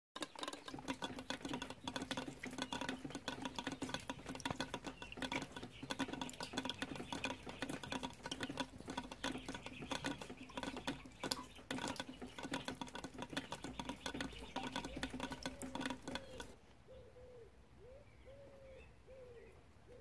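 Rain pattering close by in dense, quick drops, over a steady low hum. About sixteen seconds in this cuts off to quiet, and a hen gives a series of soft, short calls.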